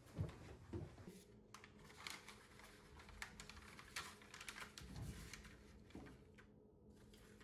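A couple of soft footsteps at the start, then faint rustling and light irregular ticking of paper being handled on a table.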